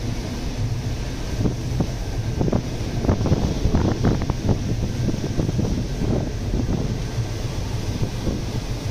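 Strong wind buffeting the microphone: a steady low rumble with crackling gusts, heaviest between about three and five seconds in, over the rush of a very rough sea.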